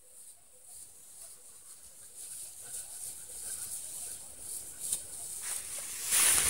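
Tall meadow grass rustling and swishing as it is pushed through on foot, growing steadily louder, with several sharper swishes near the end.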